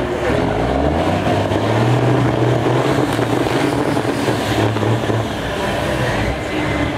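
Big-rig diesel truck engines revving hard under heavy throttle. The engine note climbs about half a second in, holds strong, then eases off about five seconds in.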